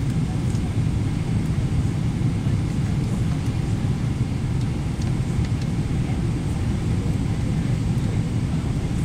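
Cabin noise inside a Boeing 777-300ER on its approach to landing: a steady low rumble with no change in level.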